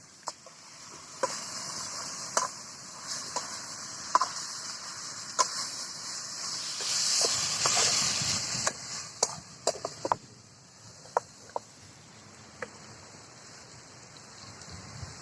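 Pork sizzling as it cooks in a pan and is stirred. The hiss swells to its loudest a little past the middle, then dies down. Irregular sharp knocks of a utensil against the pan come throughout.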